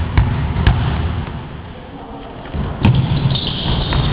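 Basketball game on an indoor court: a few sharp thuds of the ball bouncing on the floor over the steady low hubbub of the hall. High squeaks come in near the end.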